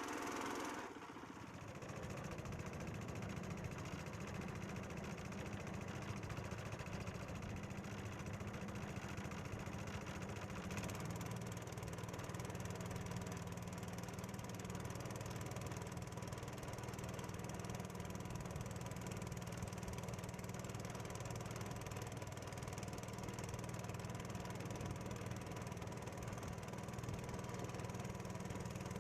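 Small boat's engine running steadily.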